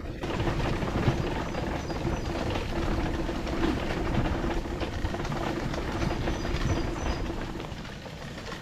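Electric wheelchair on the move over wet block paving: a steady motor hum with the wheels rattling continuously over the paving stones, easing slightly near the end.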